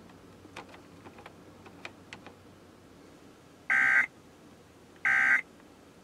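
Faint clicks as a car stereo is tuned across FM stations, then about halfway through two short bursts of EAS digital data tone a second apart. Their shortness is typical of the end-of-message bursts that close an alert.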